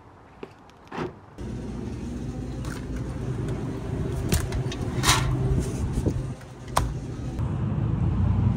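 Ram pickup truck's engine running steadily, coming in abruptly about a second and a half in, with a few sharp clicks and knocks over it.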